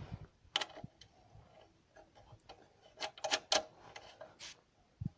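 Small sharp clicks and light rubbing of metal and plastic as power lead wires are wound onto a compressor's terminal screws and the screws turned down by hand, with a quick run of clicks about three seconds in.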